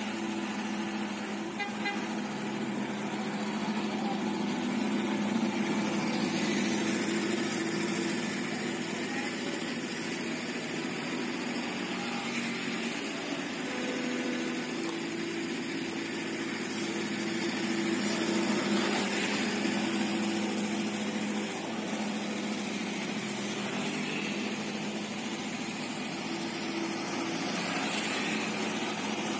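Diesel engines of an asphalt paver and dump truck running as a steady drone, swelling a little in loudness twice.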